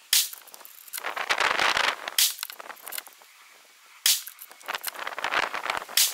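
Mosin-Nagant 91/30 bolt-action rifle firing 7.62×54mmR surplus ammunition: four sharp shots about two seconds apart. The bolt is worked between shots, heard as a second or so of rattling before the next shot.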